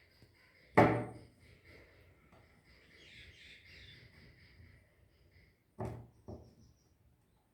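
A sharp knock about a second in, then two lighter clacks near the end: small objects or tools being handled and set down on a hard work surface during an LED bulb repair.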